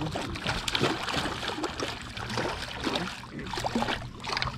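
Water splashing and sloshing against a small fishing boat, a run of short irregular splashes over a steady low hum.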